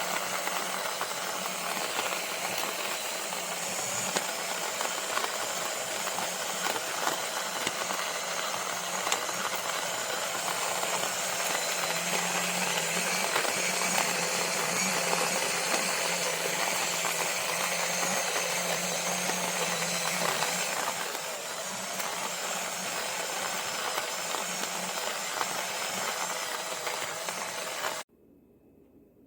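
Small cordless electric conical burr coffee grinder running as it grinds coffee beans: a steady motor hum with grinding noise, which cuts off abruptly near the end.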